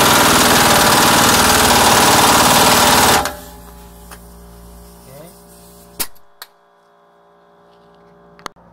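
Pneumatic impact wrench hammering for about three seconds, then stopping. It is spinning an open-ended lug nut down against a washer to draw a new wheel stud into a drum-brake hub, with the stud not yet fully seated. A few sharp clicks follow later.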